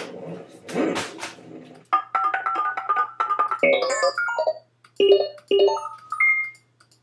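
A couple of seconds of noisy, rough sounds, then a run of short electronic keyboard notes playing a quick, ringtone-like melody, with pauses between phrases near the end.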